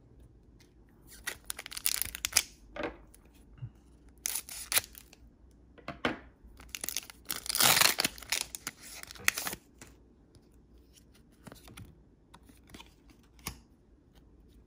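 Foil wrapper of a Pokémon booster pack crinkling and tearing as the pack is opened and the cards are pulled out, in several short bursts, the longest and loudest a little past the middle.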